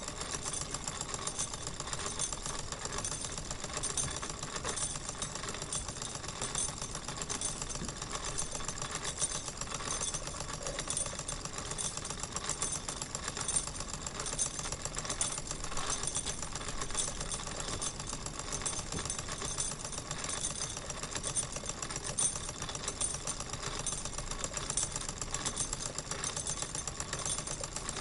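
Wilesco live-steam model engine running steadily, a fast, even, purring mechanical clatter.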